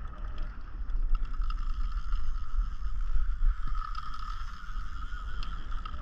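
Wind buffeting the action camera's microphone on a kayak at sea, with water sloshing against the hull. A steady thin whine runs underneath, with a few light clicks.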